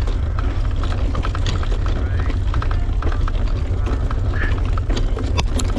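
Wind buffeting the microphone of a handlebar-mounted camera on a moving mountain bike: a steady low rumble, with scattered ticks and rattles from the bike as it rolls over the road.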